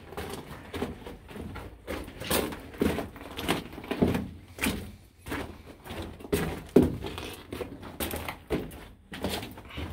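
Footsteps of several people walking on the dirt and rubble floor of a narrow mine tunnel: an uneven run of scuffing, crunching steps, about two a second.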